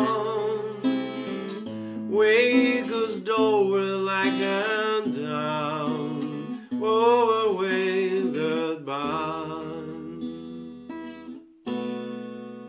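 Acoustic guitar strummed with a voice singing a wordless line over it. Just before the end the music stops for a moment, then one final guitar chord is struck and rings out, fading away.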